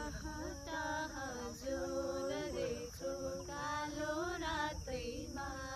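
Women's voices singing together unaccompanied: a slow, chant-like melody of held notes with gentle turns, sung in short phrases with brief breaks for breath.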